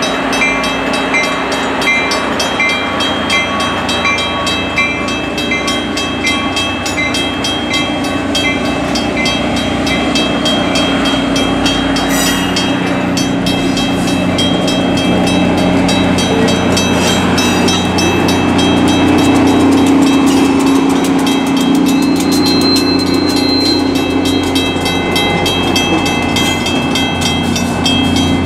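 Shore Line East passenger coaches rolling past at a grade crossing: steady rail rumble with regular clacking of the wheels over the rails. The clacking comes quicker from about halfway through. A low hum swells about two-thirds of the way in.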